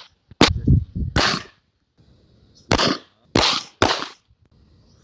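Pistol shots: about five sharp reports at irregular intervals, each with a short echo.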